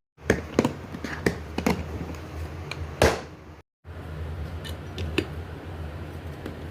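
A series of sharp clicks and knocks, the loudest about three seconds in, over a steady low hum, with the sound cutting out briefly just before the four-second mark and a few lighter clicks after it.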